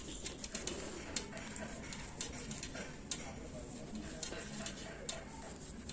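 Quiet room with faint, irregular small clicks from a crochet hook and long fingernails working stitches in yarn.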